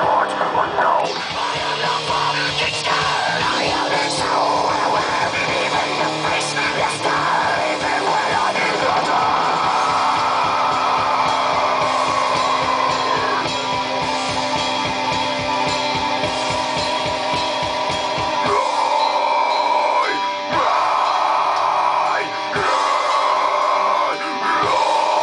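Heavy metal track with distorted guitar and fast, steady kick drumming, with a man's screamed vocal over it. About three-quarters of the way through, the kick drum drops out and held guitar tones carry on.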